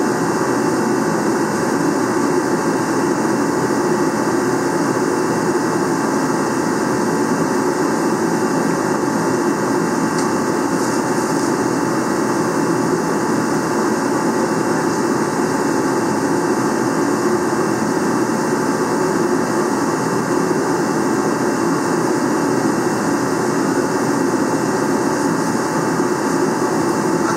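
A steady, unbroken machine drone from a motor or blower running continuously, with no change in pitch or level.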